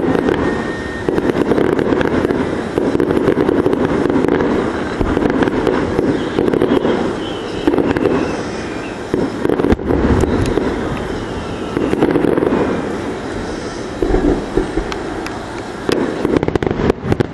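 Aerial fireworks shells bursting in a rapid, continuous barrage, with crackling throughout and a quick run of sharp bangs near the end.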